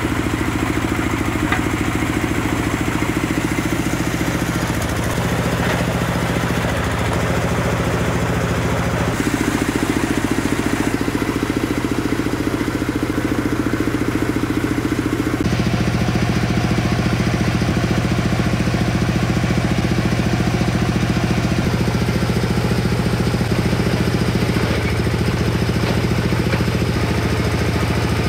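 Engine of a tractor-mounted water-well drilling rig running steadily, driving the rig's hydraulics while the drill pipes are pulled. Its tone changes abruptly twice, about a third and halfway through.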